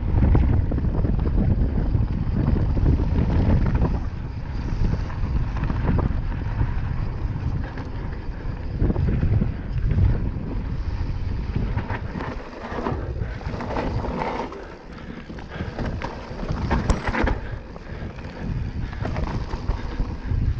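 Wind rushing over the microphone of a mountain bike descending a gravel track, with tyre noise on the gravel. The bike rattles and knocks over bumps, more often in the second half.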